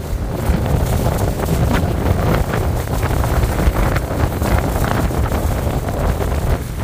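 Strong wind buffeting the microphone: a loud, continuous low rumble that rises and falls with the gusts.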